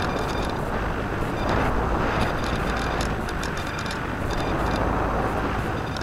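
Electric motor and propeller of a Pelikan Gama 2100 RC motor glider running in flight, heard from a camera mounted on the model, with steady wind rush over the microphone and faint high ticking.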